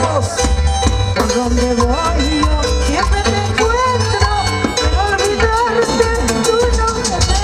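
Live amplified Peruvian folk music: a woman singing the melody over a band with a steady bass beat, played through a PA.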